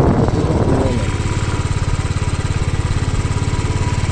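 Vehicle engine running steadily with an even low pulse. A voice is heard briefly in the first second.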